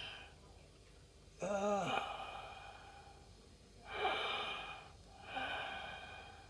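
A man's breathing and a brief murmured hum while he reads to himself: one short voiced "mm" about a second and a half in, then two audible breaths later on.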